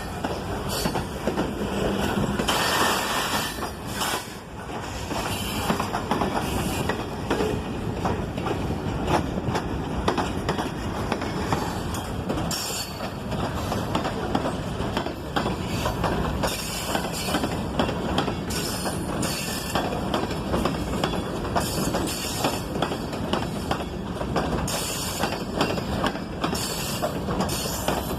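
Freight train rolling steadily past, its wheels clicking and clacking over the rail joints, with bursts of high-pitched noise from the wheels every few seconds.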